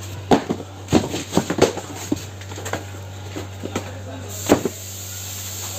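Irregular knocks and clatters, the loudest about a third of a second in, about a second in and at about four and a half seconds, over a steady low hum.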